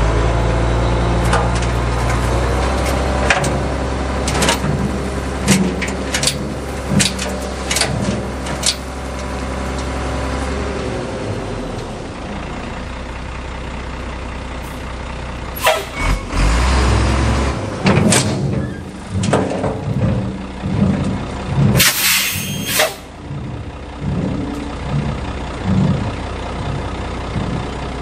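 An old dump truck's engine runs steadily while its bed is tipped and a load of dirt slides out, with scattered knocks and clunks. A short burst of hiss comes about three-quarters of the way through.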